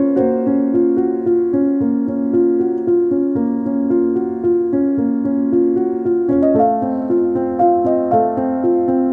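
Background instrumental music: an even run of sustained notes that moves to a new chord about six seconds in.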